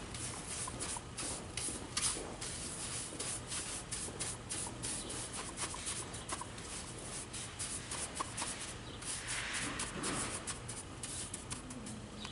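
Stiff-bristled hand brush sweeping and scrubbing oil-soaked corn cob absorbent granules across a hard surface: many short, scratchy brushing strokes, with a longer sweep about nine seconds in.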